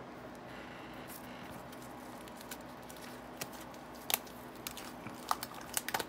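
Plastic shrink-wrap on comic books crinkling as they are handled, scattered sharp crackles, with several close together near the end.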